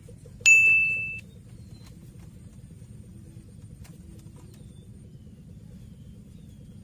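A small metal bell struck once: a single clear, high ding that fades away within about a second.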